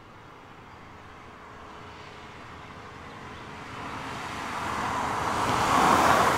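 Škoda Fabia Combi approaching and passing close by: a steady rush of tyre and engine noise that grows louder as it nears, loudest about six seconds in as it goes past.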